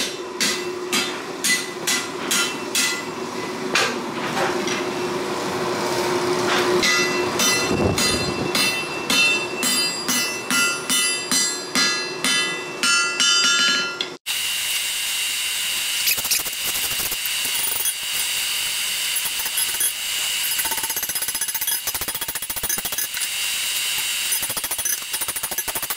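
Hand hammer forging a hot 5160 steel knife blade on an anvil: a steady run of sharp blows, about two a second, each followed by the anvil's ring. After an abrupt cut about halfway through, a dense, rapid clatter of small clicks takes over.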